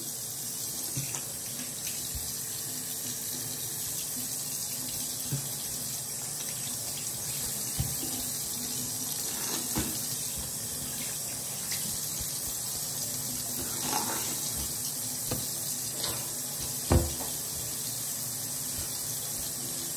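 Bathroom sink tap running steadily into the basin, with a few brief knocks and splashes as hands work in the water; the sharpest knock comes about three-quarters of the way through.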